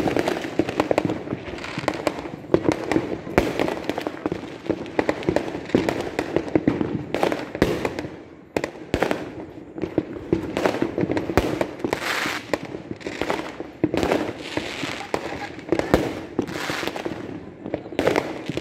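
Fireworks going off in a dense, unbroken barrage of bangs and crackles, many reports a second, some sharp and close, others duller.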